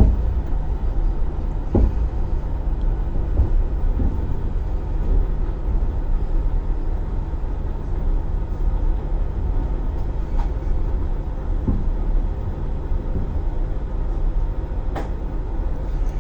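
Passenger train's steady low rumble, with a few knocks and clunks at irregular intervals.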